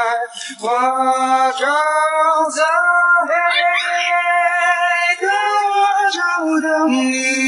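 A voice singing long, held notes that slide from pitch to pitch.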